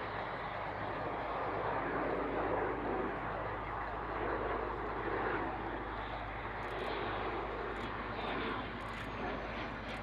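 Fixed-wing aircraft engine noise: a steady rush over a low hum, holding about level throughout.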